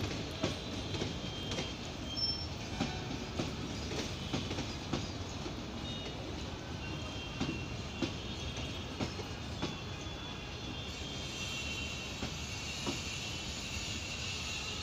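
Indian Railways passenger coaches rolling past, their wheels clicking over the rail joints about twice a second over a steady rumble, with short high wheel squeals. The clicks thin out and fade after about ten seconds as the last coaches go by, leaving a steady hiss.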